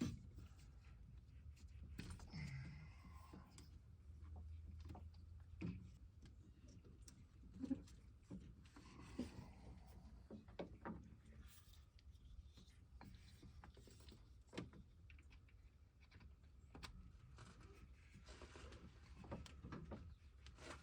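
Near silence with faint, scattered clicks and knocks over a low hum.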